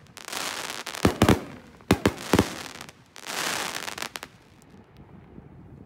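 Brothers Quest canister aerial shells breaking overhead. Several sharp booms land about one and two seconds in, among stretches of dense crackle that die away about four seconds in.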